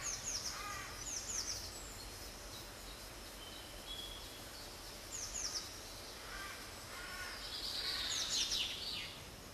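Small songbirds singing outdoors: groups of short, high, falling chirps near the start and around five seconds in, then a denser, louder burst around eight seconds in, over a steady background hiss.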